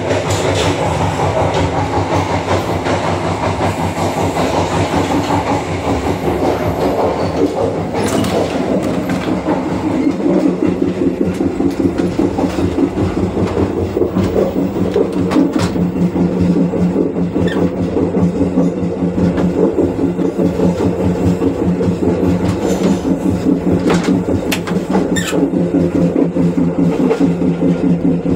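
Passenger train carriage in motion, heard from inside: a loud, steady running noise of wheels on rail with a few sharp clicks.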